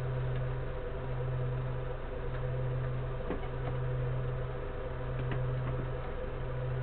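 A steady low machine hum that swells and dips about once a second, over a faint hiss.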